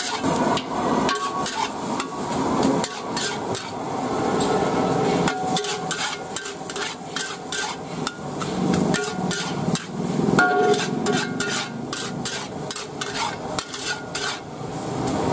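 Metal ladle and spatula scraping and knocking against a steel wok as rice is stir-fried, in many irregular strikes over the sizzle of frying.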